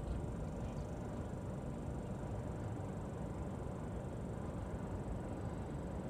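Steady low rumble of an idling vehicle, with a few faint clicks near the start as lug nuts are threaded by hand onto the wheel studs.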